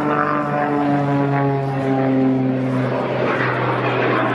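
Aerobatic biplane's piston engine and propeller droning overhead, its pitch slowly falling, the note turning rougher and noisier about three seconds in.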